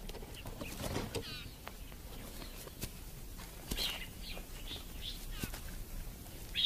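Birds chirping on and off in short calls, some rising and one falling, over a faint outdoor background, with a few light clicks.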